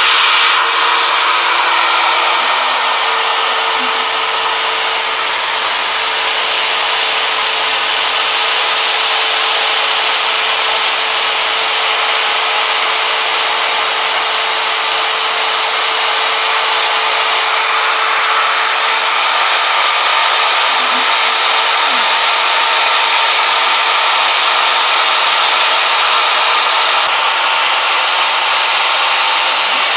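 CNC router's spindle running steadily as it mills a part, a loud hiss with a constant whine.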